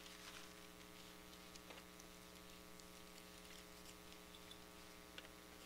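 Near silence: a steady low electrical hum, with a few faint ticks.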